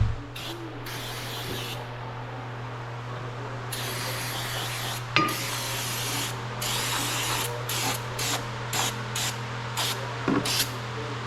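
Aerosol can of brake cleaner spraying: one long blast of about two and a half seconds, then a quick string of short squirts, with a few knocks of metal parts in between.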